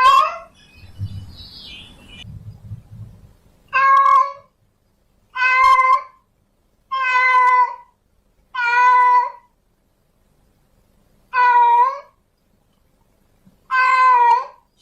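A female cat in heat calling, about seven loud drawn-out meows, each under a second and spaced a second or two apart, some bending in pitch at the end. Faint low rumbling noise sits under the first couple of seconds.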